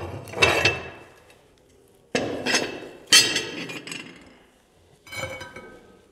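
Metal stovetop rings being lifted off and set down, clanking about four times with a ringing note after each clank.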